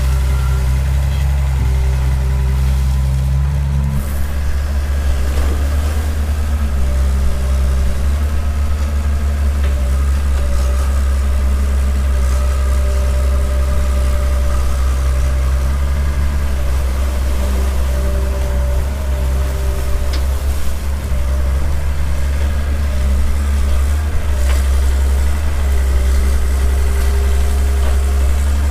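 Hitachi hydraulic excavator's diesel engine running steadily, a low hum whose tone shifts now and then as the hydraulics take load while the arm digs and swings, with a fainter whine coming and going.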